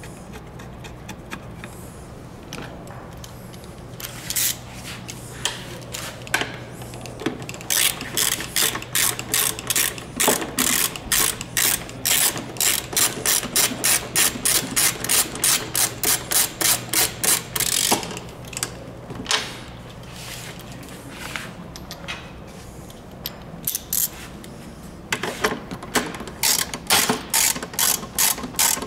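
Hand ratchet wrench clicking as it tightens the bolt and nut at a seat's backrest pivot, in quick runs of about three clicks a second, with a pause of several seconds in the middle.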